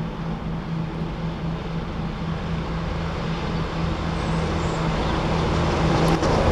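Class 52 'Western' diesel-hydraulic locomotive D1015, with twin Maybach V12 diesel engines, running steadily as it approaches at the head of a train. Its low drone grows steadily louder.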